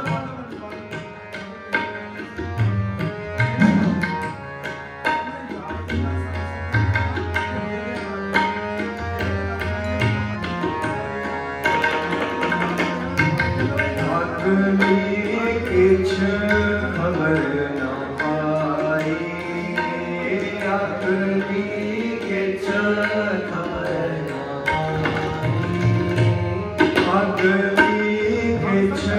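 Sikh kirtan music: tabla playing against held melodic notes, with a voice singing a melody from about twelve seconds in.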